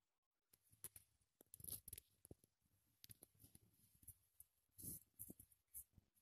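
Near silence with faint scattered rustles and small clicks: handling and movement noise as the camera and the sock-clad feet are shifted about on a rug.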